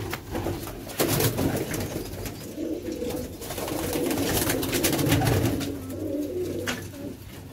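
A loft full of domestic pigeons cooing together, with a few short flutters and knocks as birds are caught by hand.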